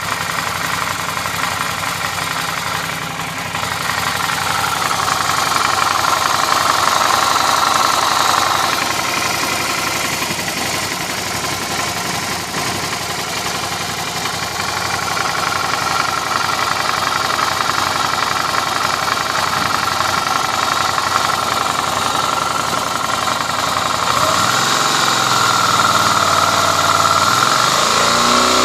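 Suzuki V-Strom motorcycle's V-twin engine running with a noise the owner finds strange, mostly at a steady idle; about twenty-four seconds in the engine is revved and its pitch rises.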